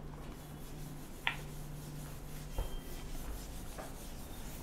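Whiteboard eraser wiping across a whiteboard: a faint, steady scrubbing, with a few light knocks.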